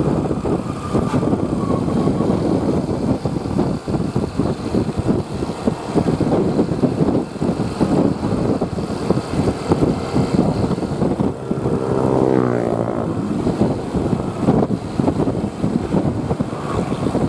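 Heavy vehicle engine and road noise from a bus, running steadily. About eleven seconds in there is a pitched tone lasting about two seconds.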